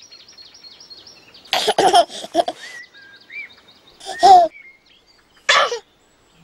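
A baby giggling in three short bursts, over small birds chirping in the background.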